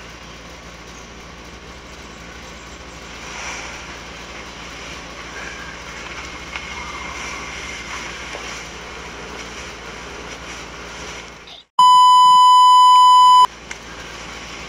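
Steady low hiss, then a sudden cut to silence and a loud, steady single-pitch censor bleep lasting about a second and a half, starting about three-quarters of the way through.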